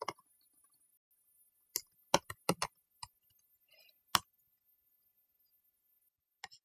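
Computer keyboard keys clicking in scattered keystrokes: a quick run of about five about two seconds in, then single clicks, the loudest about four seconds in, and one more near the end.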